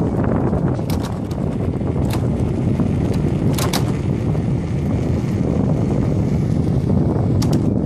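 Steady low rumble of wind buffeting the microphone and tyres rolling on asphalt, recorded while moving at speed alongside an electric unicycle, with a few sharp clicks.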